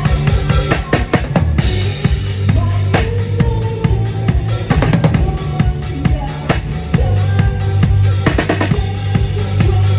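Live band playing on stage during a sound check: a drum kit played in a steady groove over sustained bass notes, with other pitched instruments in the mix.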